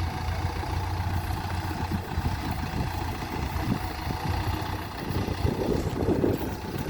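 JCB 3DX backhoe loader's diesel engine running steadily at low revs, with a somewhat louder, busier stretch about five to six seconds in.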